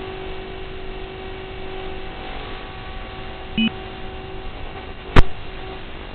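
Small 3-inch FPV quadcopter's motors and propellers running with a steady whine under a hiss, in poor, muffled onboard audio. A short beep sounds about three and a half seconds in. A sharp click about five seconds in is the loudest sound.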